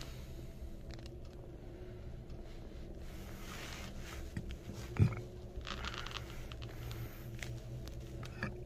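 Hyundai Elevator passenger car travelling between floors: a steady low hum inside the car, with one sharp thump about five seconds in and some light rustling around it.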